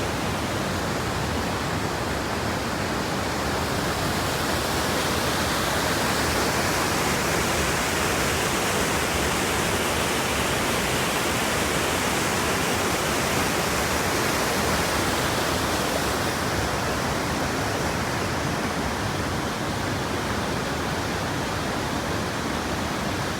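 Waterfall and rapids pouring over rock, a steady rush of water.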